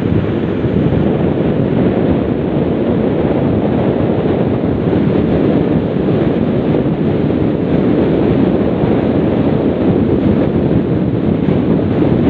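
Steady wind rushing over the microphone of a motorcycle riding along a road.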